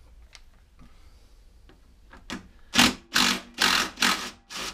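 DeWalt cordless impact driver hammering in five short bursts in the last two seconds, undoing a bolt on a lawnmower's wheel axle. Faint clicks of handling come before it.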